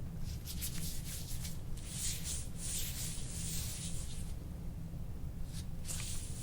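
Instrument-assisted soft-tissue scraping: a scraping tool drawn over skin in long rasping strokes, the longest running from about two seconds in to past four seconds, with another starting near the end.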